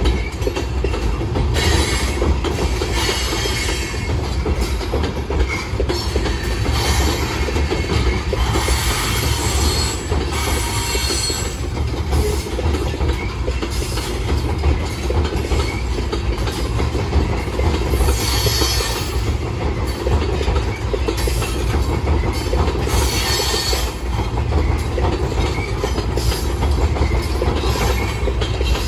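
Freight train of open-top hopper cars rolling over a timber-trestle bridge with a steel girder span, heard from below: a steady rumble and clatter of wheels over the bridge, with high-pitched wheel squeal rising over it several times.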